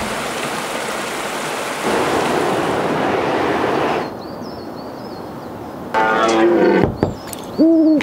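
Waterfall rushing, a steady noise of falling water, for about four seconds. Then a quieter open-air background with faint, high, repeated chirps. Near the end come two short pitched animal-like calls, the second a steady two-tone note.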